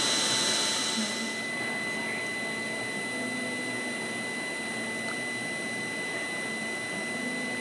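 Steady hiss with a thin high whine from a small motor or fan. The upper part of the hiss drops away about a second and a half in.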